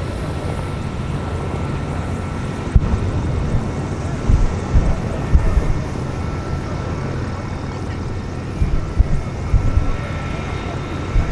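Bell AH-1 Cobra attack helicopter running steadily, its turbine and two-blade rotor giving a constant noisy rumble with a faint steady whine, broken by irregular low thumps a few times.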